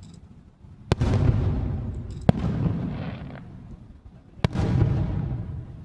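Aerial fireworks shells bursting: three sharp bangs about a second and a half to two seconds apart. Each is followed by a long rumbling echo that dies away.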